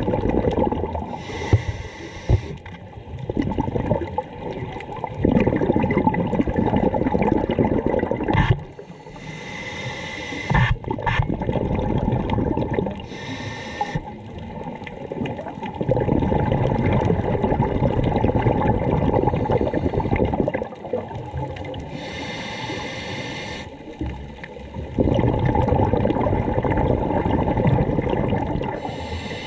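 Scuba diver breathing through a regulator underwater: short hissing inhalations alternate with several-second bursts of bubbling exhalation, in a slow cycle of about four breaths.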